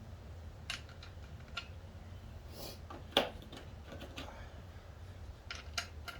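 Scattered light clicks and taps from hands working on car-seat hardware and tools, with one sharp, louder click about three seconds in and a quick run of clicks near the end, over a steady low hum.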